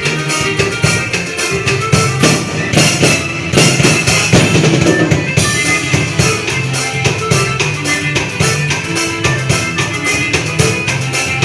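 Drum kit played live along to a recorded forró song, with bass drum and cymbals over the band's bass line and keyboards, in a quick steady rhythm; the drumming gets busier about three to five seconds in.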